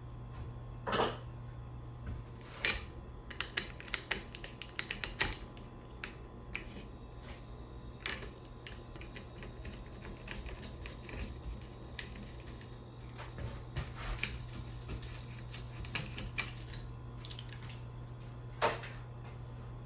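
Irregular small metallic clicks and clinks from tools and bicycle parts being handled, a few sharper knocks among them, over a steady low hum.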